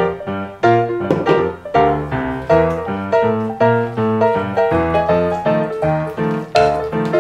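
Background piano music: a light melody of short notes played at an even pace.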